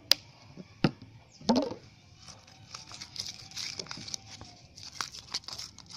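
Sticky homemade glue slime, just dosed with baby oil, being stirred in its container, giving scattered wet clicks and crackles. There is a loud click near the start and a brief voice-like sound about a second and a half in.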